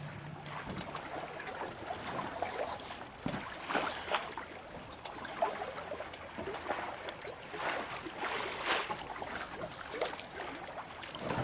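Water splashing and trickling along the hull of a sailboat under way, irregular small splashes over a steady hiss.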